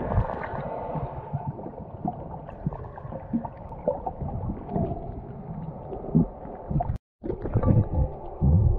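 Muffled underwater sound of moving water gurgling, with irregular low knocks and thumps, as heard by a camera submerged in a waterproof housing. The sound cuts out briefly about seven seconds in.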